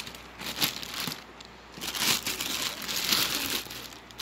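Clear plastic bag wrapped around a sewing machine crinkling and rustling as it is handled, in irregular bursts, with a short lull about a second in and a longer spell of crinkling after it.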